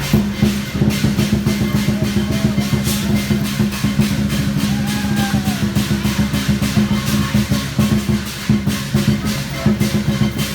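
Chinese dragon dance percussion: a large drum beaten in a fast, dense rhythm with cymbals clashing, over a steady low ringing.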